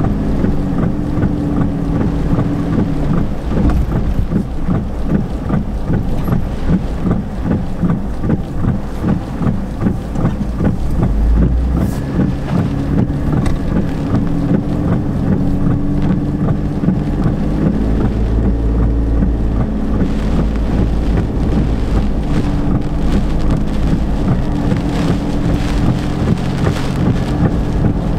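Car engine running as it drives along a wet road through hurricane wind and rain, heard from inside the car, with heavy wind rumble and the patter of rain or spray throughout.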